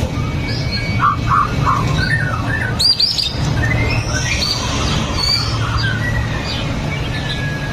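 White-rumped shama singing: a rapid string of short whistled and chirping notes that rise and fall, with a long held whistle near the end. A steady low hum runs underneath.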